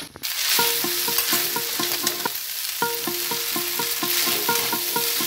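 Spaghetti, vegetables, egg and chicken sizzling as they are stir-fried in an aluminium kadai with a metal spatula; the sizzle starts just after the beginning. A quiet repeating tune of short notes plays underneath.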